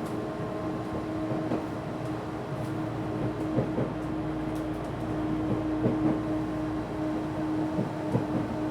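Cabin running noise of an Odakyu 1000 series electric train car under way: a steady hum of constant pitch over rolling noise, with scattered knocks from the wheels on the track, and the air conditioning running.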